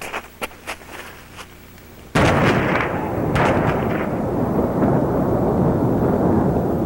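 A few sharp pops, then about two seconds in the blast of a large explosion arrives all at once and goes on as a long, heavy rumble that grows duller.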